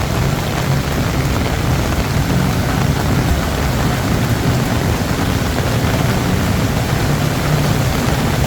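Heavy monsoon rain pouring steadily, with the low hum of car engines running in the flooded street beneath it.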